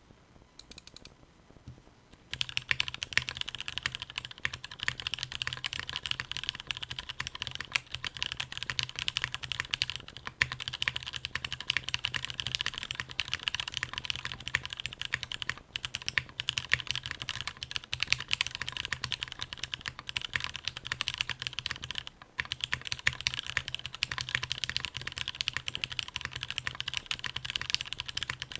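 Continuous fast typing on a mechanical keyboard with lubed and filmed Cherry MX Black linear switches and GMK ABS keycaps on an FR4 plate in an isolated top-mount aluminium case, a steady stream of keystroke clicks starting about two seconds in, with a few brief pauses.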